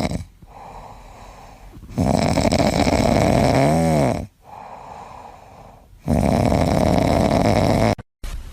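A pet snoring loudly in long, noisy breaths of about two seconds each, with quieter pauses between them, cut off suddenly near the end.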